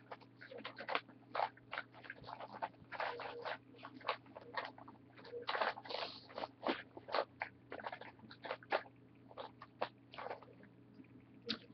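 Irregular rustling, clicking and scraping of makeup items being handled close to the webcam's microphone, with a faint steady low hum underneath.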